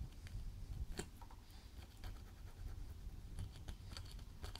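Fingernail picking and scratching at the silicone sealant over a kitchen scale's metal load cell: faint small clicks and scrapes, with one sharper click about a second in.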